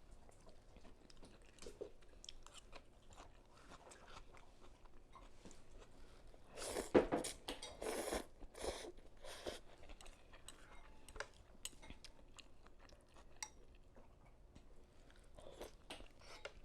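A person chewing vegetable pho up close, with soft crunches and small wet clicks. Several louder, noisier sounds come in a run between about seven and nine and a half seconds in.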